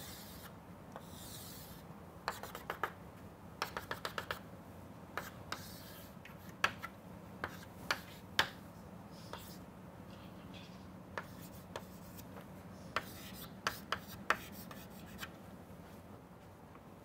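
Chalk on a chalkboard as a diagram is drawn: short scratching strokes and sharp taps of the chalk against the board, coming in irregular clusters, over a faint steady low hum.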